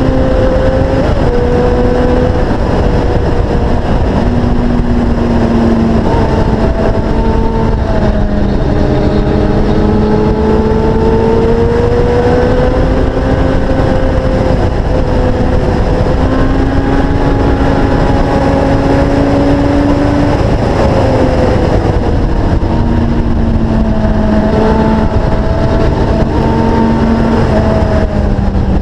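Motorcycle engine running at speed under heavy wind noise on the microphone; its pitch climbs slowly under throttle and steps down several times, as on gear changes and corner entries.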